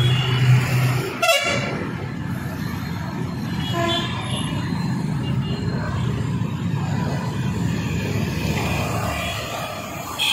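Road traffic running steadily, with a short vehicle horn toot about four seconds in.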